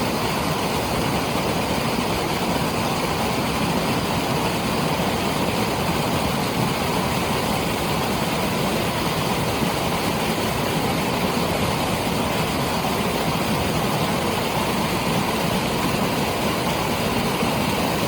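Water rushing out of a dam's flood discharge outlets in a loud, steady roar that does not change.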